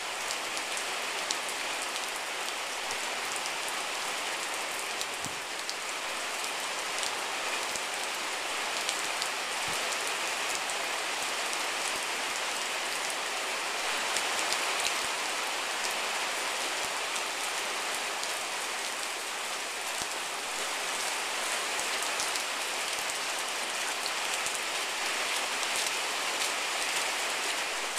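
Steady rain falling, with many small drop hits close by.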